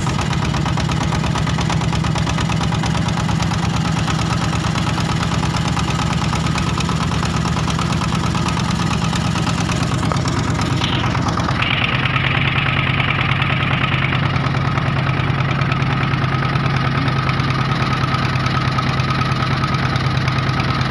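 A small fishing boat's engine running steadily at a constant speed. Its pitch steps slightly lower about twelve seconds in.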